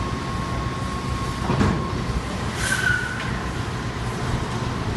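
Fire-engine pumps and hose water making a steady low rumble, with a faint steady whine. A short bang comes about a second and a half in, and a brief hiss a little later.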